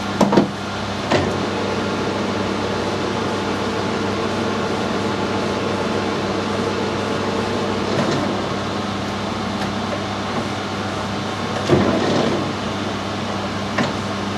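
Metal lathe running with no cut, its headstock gearbox and spindle humming steadily as it is run up to spread oil round the cold gearbox. A few sharp clunks come near the start and again near the end.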